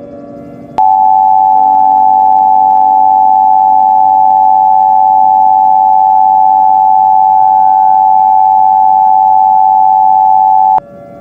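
Emergency Alert System–style attention tone: a loud, steady electronic tone that starts sharply about a second in, holds for about ten seconds and cuts off abruptly near the end.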